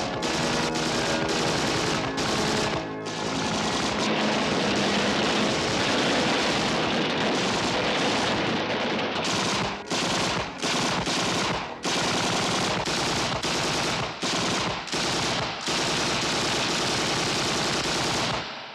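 Sustained automatic machine-gun fire, nearly continuous for several seconds, then broken into long bursts with short pauses between them. It cuts off suddenly at the end.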